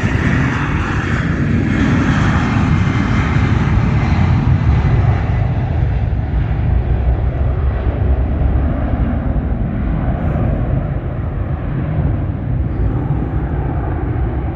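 British Airways jet taking off, its engines at takeoff power giving a loud, steady noise; the high hiss fades from about five seconds in as the aircraft climbs away.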